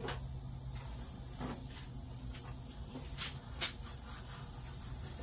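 Steady high-pitched chirring of insects, with a few light clicks and knocks of handling, the sharpest about three and a half seconds in.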